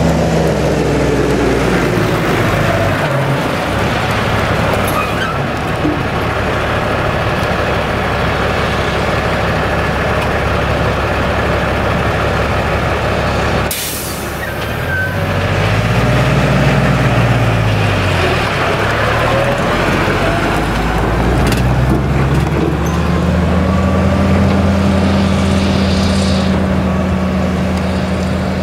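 Claas Jaguar 970 self-propelled forage harvester running steadily while it chops sorghum, its V8 engine and chopper making a loud, constant drone. The engine pitch wavers near the middle, then settles a little higher for the last few seconds.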